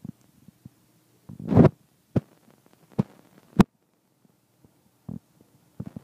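Close-up handling noise on a phone microphone: scattered soft knocks and clicks, with a louder scraping rustle about a second and a half in, followed by three sharp taps over the next two seconds.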